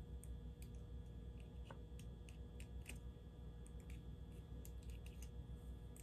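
Faint, scattered clicks and ticks of a small tool and fingers working at the plastic and metal parts of a model diesel locomotive, prying at a truck frame that won't unclip easily. A low steady hum lies underneath.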